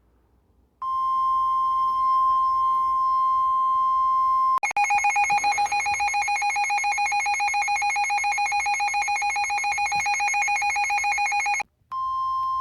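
Emergency Alert System attention tones over NOAA Weather Radio, signalling a tornado warning: a steady single tone near 1 kHz for about four seconds, then a harsher, rapidly pulsing two-tone alert for about seven seconds, then the single tone again briefly near the end.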